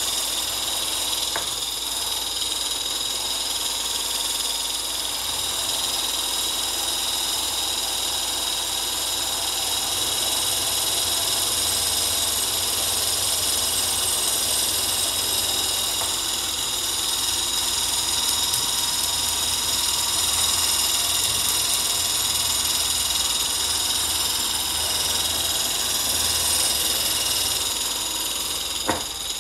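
Handheld electric stick mixer with a whisk attachment whipping egg whites into meringue, its motor running with a steady whine. The power has been turned up as the whites thicken.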